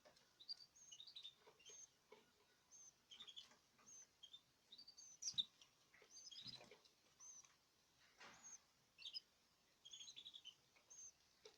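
Canaries in a cage, a breeding pair with its 18-day-old chicks, chirping: short, high chirps scattered throughout. A sharper tap comes about five seconds in, with a couple of softer knocks.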